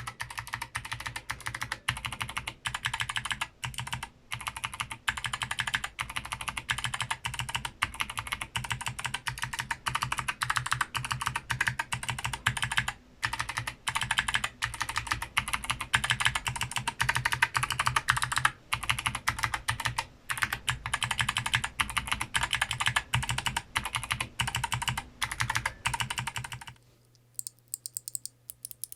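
Mechanical keyboard with Kailh Box switches being typed on fast, a dense stream of clicky keystrokes. Near the end the typing stops, leaving only a few faint clicks.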